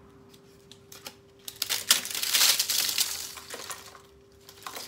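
Crisp deep-fried dough sheets (trid for Moroccan filaliya) being broken and crumbled by hand. A crackling crunch runs from about one and a half to three and a half seconds in, with a few light cracks before and after. The sound shows the sheets are fried crisp and light.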